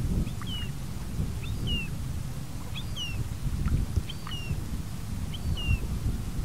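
Short, high, downward-slurred bird calls repeated about five times, over a steady low rumble of wind buffeting the microphone.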